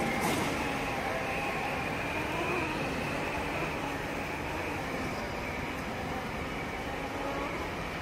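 Autonomous floor-scrubbing robot running, its brush and vacuum motors making a steady drone with a high whine over it. A short click comes just after the start.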